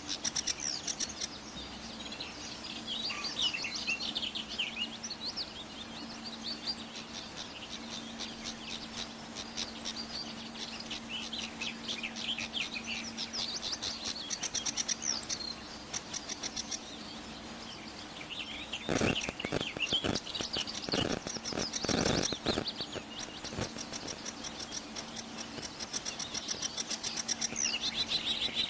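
Many small birds chirping and twittering over a steady low hum, with a few sharp knocks about two-thirds of the way through.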